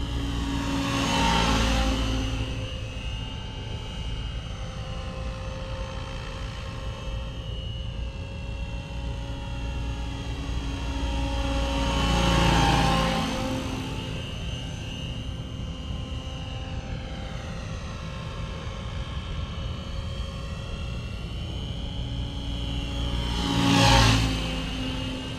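Align T-Rex 700 RC helicopter in a Bell Jet Ranger scale body flying by three times: a steady whine of motor and rotors that swells as it passes, about a second in, midway, and loudest near the end, the pitch sliding down each time it moves away.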